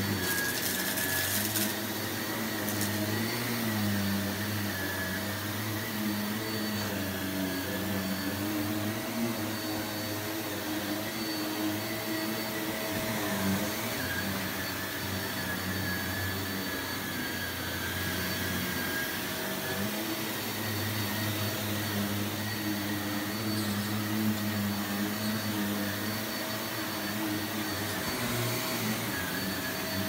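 Bagless upright vacuum cleaner running steadily over a rug, its motor hum and high whine continuous, with the pitch wavering slightly as it is pushed back and forth.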